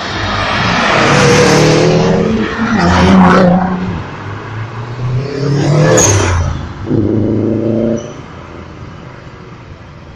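Cars accelerating hard past one after another, each engine note rising and then fading as it goes by. The loudest pass, about six seconds in, is a Subaru Impreza hatchback going by close. Another engine cuts off abruptly about eight seconds in.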